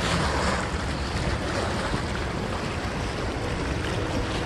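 Steady rush of choppy river water along a rocky bank, mixed with wind rumbling on the microphone.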